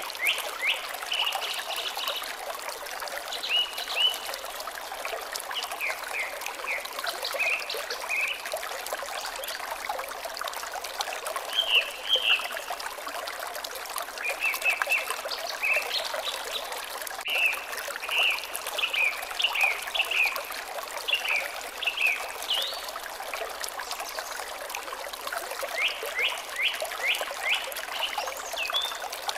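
Water trickling steadily, with birds chirping over it in repeated quick runs of short, high, downward-sweeping chirps.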